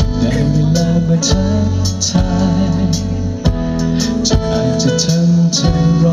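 A live band playing a song: a man singing into a microphone over electric bass, guitar and a drum kit, with regular drum hits.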